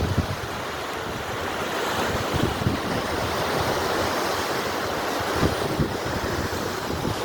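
Sea surf washing in steadily, with wind buffeting the microphone in irregular low gusts.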